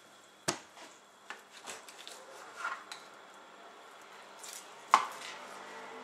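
Large kitchen knife cutting pork ribs apart on a plastic cutting board. There are two sharp knocks of the blade striking the board, one about half a second in and a louder one about five seconds in, with lighter taps and scraping between.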